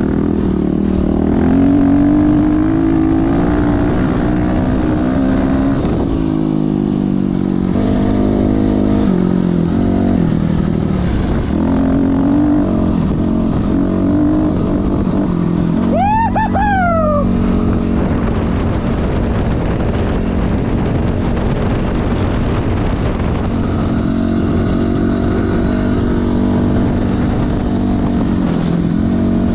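Dirt bike engine being ridden hard, its pitch rising and falling over and over as the throttle opens and closes and the gears change. A short, high, falling squeal cuts in about halfway through.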